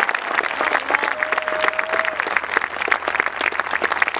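Crowd applauding steadily with dense clapping, as a speech pauses after a line. About a second in, one voice or whistle in the crowd holds a single steady note for about a second.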